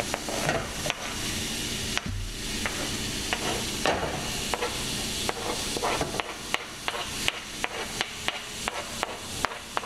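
Shrimp and garlic sizzling in olive oil in a skillet while a metal spoon scrapes cherry tomatoes and chopped parsley off a cutting board into the pan, with frequent light clicks and taps of the spoon against the board and pan.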